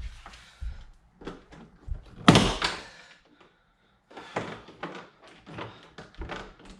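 Plastic trim clips popping and the door trim panel knocking as it is pried off a VW Passat's door: a run of clicks and knocks, the loudest about two seconds in.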